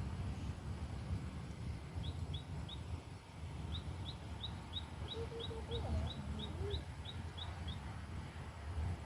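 A small bird calling a run of short, high, upward-flicking chirps, about three a second, in two bouts. Beneath it is a steady low rumble, with a few lower short calls around the middle.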